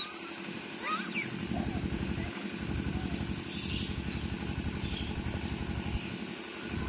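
An engine running with a steady, rapid low pulse. A few short, high gliding squeaks sound over it, one about a second in and more around the middle.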